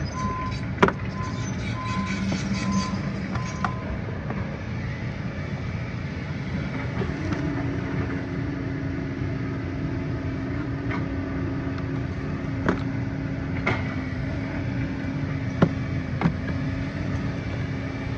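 A vehicle engine running steadily. A repeating on-off beep sounds over the first few seconds, and a steady hum joins about a third of the way in. Several sharp plastic clicks come from the air filter housing lid being handled and pressed down.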